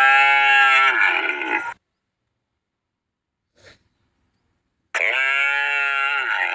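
Young calf mooing: two long calls, the first ending almost two seconds in and the second starting about five seconds in, each held for around two seconds with the pitch dipping at the end.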